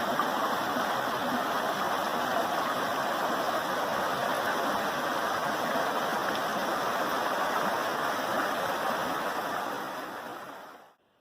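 Water rushing steadily in a stream, fading out about ten seconds in.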